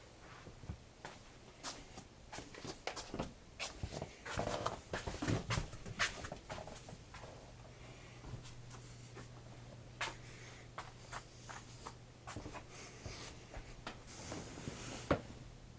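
A cat playing: irregular taps, clicks and scratchy rustling from its paws and play, busiest around four to six seconds in and again near the end.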